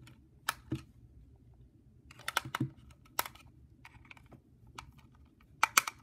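Scattered sharp plastic clicks and light knocks as a small plastic portable radio, the Sentry PR799, is handled and turned over in the hands. The clicks come singly and in short clusters, with the loudest pair near the end.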